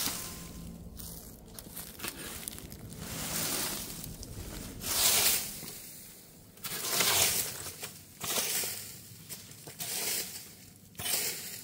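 A garden rake dragging dry leaves and sticks out from under a concrete culvert cover: a run of about six rustling scrapes, one every second or two, the loudest about five and seven seconds in.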